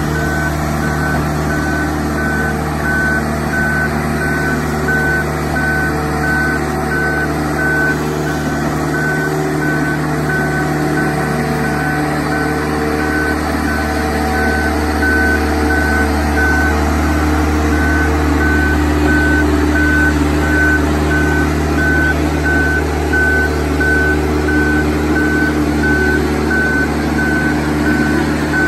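Marine Travelift boat hoist on the move: its travel alarm beeps at an even on-off rate over the steady hum of the lift's engine. The engine grows a little louder about halfway through.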